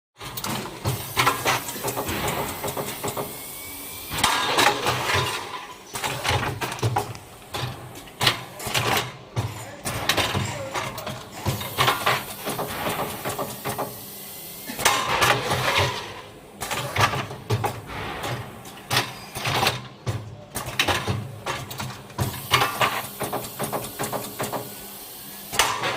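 KG-D300 automatic pouch packing machine running through its bagging cycle: steady clicking and knocking of its mechanism over a low hum. A longer, noisier stretch of working comes back about every eleven seconds.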